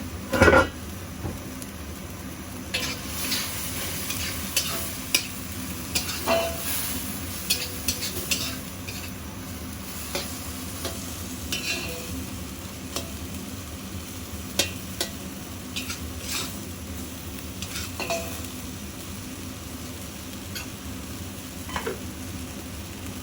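Eggplant and meat frying in a wok with a steady sizzle, while a spatula stirs and scrapes against the pan in short irregular strokes. There is one loud knock about half a second in.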